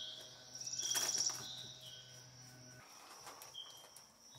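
Birds chirping, with a louder rapid trill about a second in, over a steady high-pitched insect drone.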